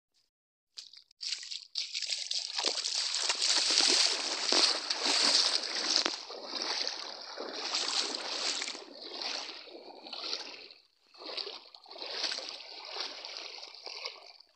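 Feet wading through shallow river water, sloshing and splashing in uneven surges. It starts about a second in, with a brief break about three-quarters of the way through.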